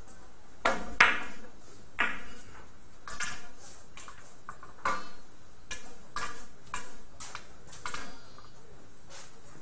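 Billiard balls clicking together during a shot, each click with a short ring. The two loudest clicks come about a second in, followed by a sparser run of lighter clicks as the balls keep colliding and rebounding.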